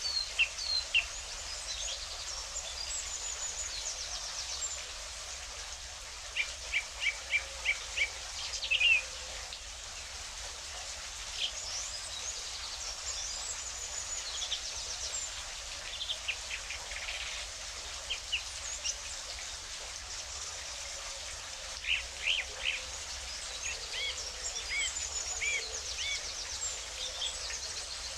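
Several songbirds chirping and trilling over a steady rush of water. A run of about six sharp, evenly spaced chirps comes about a quarter of the way in, with high thin trills scattered throughout.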